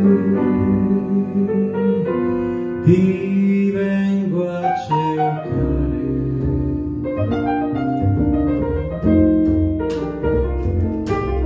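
Live jazz trio of archtop guitar, grand piano and double bass playing an instrumental passage of a slow ballad, with no singing; the double bass's deep notes come in much stronger about halfway through.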